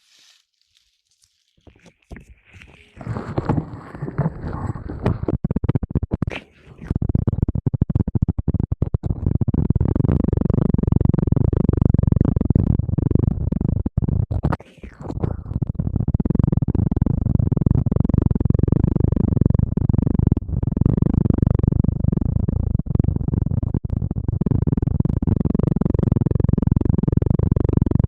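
Close rubbing and scratching on the microphone for ASMR, starting about two seconds in and becoming loud and continuous, heavy in the low end with many small crackles.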